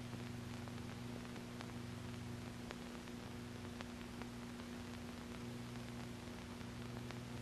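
Faint steady hum with hiss and scattered faint clicks: the background noise of an old film soundtrack, with no clear engine sound.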